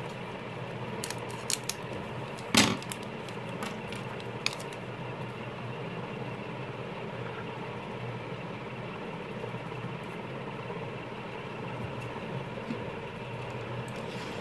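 A few sharp clicks and taps of small plastic parts being handled, the loudest about two and a half seconds in, over a steady low background hum.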